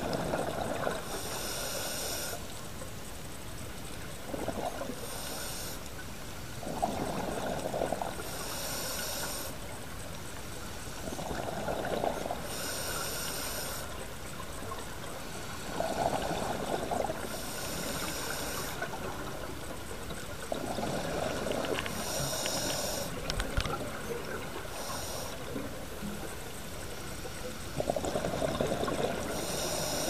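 Scuba diver breathing through a regulator underwater: a hiss on each inhalation, then exhaled bubbles, repeating every four to five seconds.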